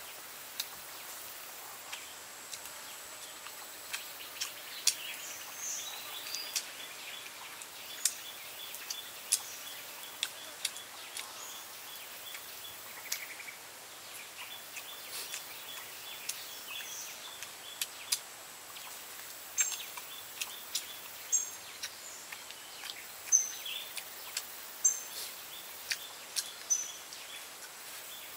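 Outdoor ambience of a steady high hiss, with scattered sharp clicks and crackles as grilled duck is torn apart by hand and chewed. A small bird chirps short high notes, often in pairs, every couple of seconds in the second half.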